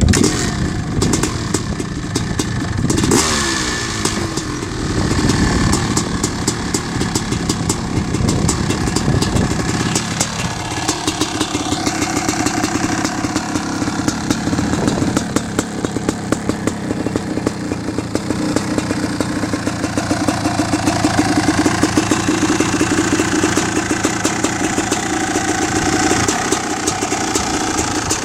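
1997 Honda CR500R's two-stroke single-cylinder engine running, revved up and down a few seconds in, then dropping to a steady idle about ten seconds in with another brief blip of the throttle a few seconds later.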